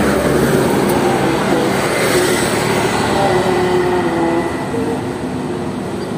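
Steady rushing noise, like water spraying, over the fish-cutting table, a little brighter about two seconds in, with faint held notes of a background tune.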